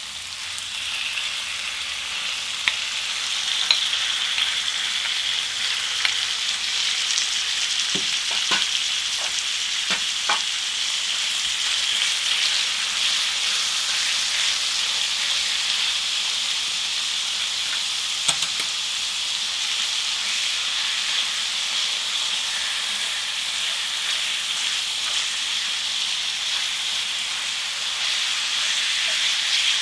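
Thinly sliced marinated pork sizzling in hot oil on a griddle pan. The steady hiss swells over the first few seconds as more meat goes in, then holds, with a few light clicks of chopsticks against the pan.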